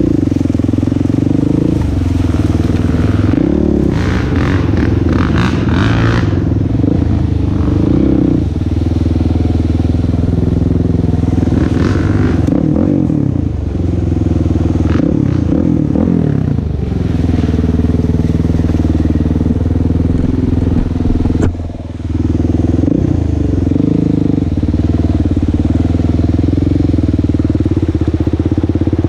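Kawasaki KFX400 quad's single-cylinder four-stroke engine running at low speed, its pitch rising and falling with the throttle. The revs drop briefly about three quarters of the way through.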